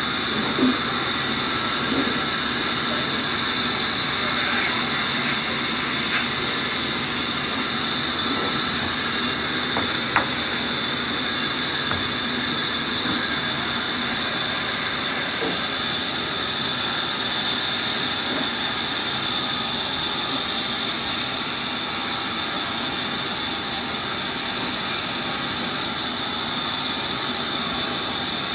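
Large wheeled band saw running steadily as planks are fed through it and ripped lengthwise: an even, high hiss, with a few faint knocks.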